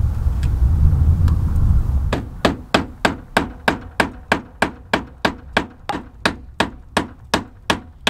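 Hammer driving nails into a playhouse roof: a steady run of sharp blows, about three a second, starting about two seconds in.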